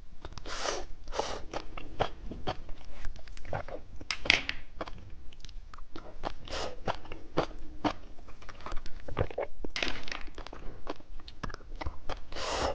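Candy being bitten and crunched close to the microphone: a dense run of sharp, crisp crunches, with a few fuller bites about half a second in, around four seconds in, near ten seconds and near the end.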